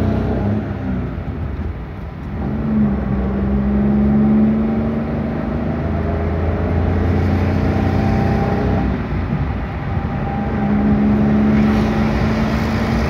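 Car engine and road noise heard from inside the cabin while driving. The engine note dips twice, about two seconds in and again about nine seconds in, then picks up and holds steady.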